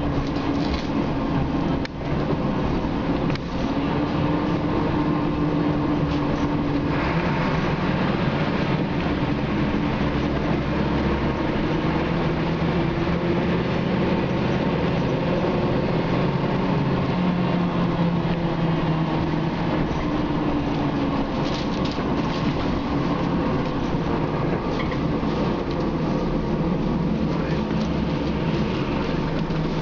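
Inside a Scania K93CRB single-deck bus under way: its rear-mounted nine-litre diesel engine and drivetrain running over road rumble, the engine note rising and falling as the speed changes.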